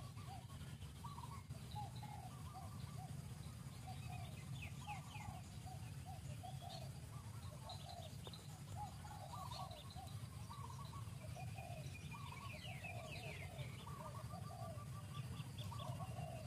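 Faint birdsong: short calls repeating a few times a second, with bursts of quick, high, falling chirps about four seconds in and again near twelve seconds, over a steady low rumble.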